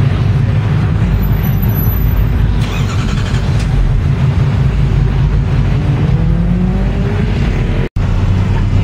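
Ram pickup truck's engine running as the truck rolls slowly past, deep and steady, rising in pitch near the end. The sound drops out abruptly for an instant shortly before the end.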